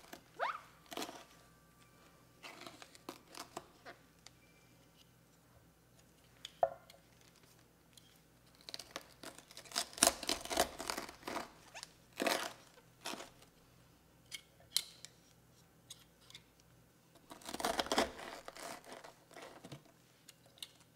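Metal apple corer twisted and pushed into the core of a raw cabbage, crunching and tearing the dense stalk in short bursts with quiet gaps between. The loudest crunching comes about halfway through and again near the end.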